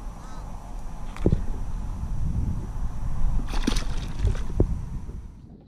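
A released sheepshead splashes back into the water about three and a half seconds in, over a low steady rumble of water moving against the kayak. A few short knocks from handling come before and after the splash.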